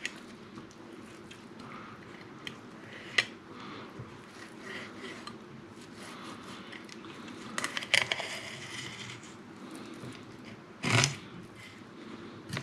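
An old fishing knife cutting a sea bass fillet off the backbone on a plastic chopping board: soft scraping and slicing, with a few brief clicks of the blade, the loudest near the end.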